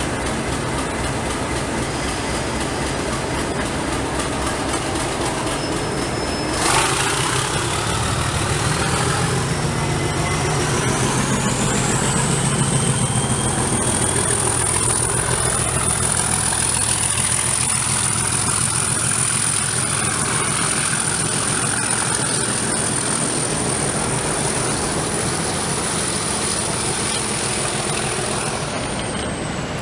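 Class 37 diesel locomotive's English Electric V12 engine running, with a sharp bang about a quarter of the way in as it moves off. The engine then works harder and its turbocharger whistle rises to a steady high whine, which falls in pitch near the end.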